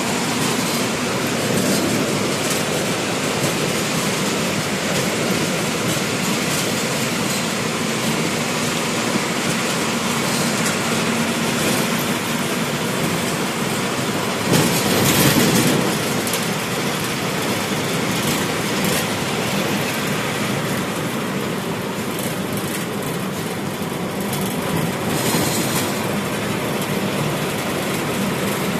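Steady running noise of a bus at highway speed, heard from the driver's cabin: engine drone and tyre and road noise. A brief louder rush comes about halfway through.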